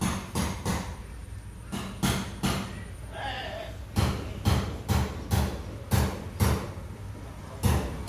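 Sharp knocks, like hammer blows, struck in runs of a few strokes at about two a second, with short pauses between the runs.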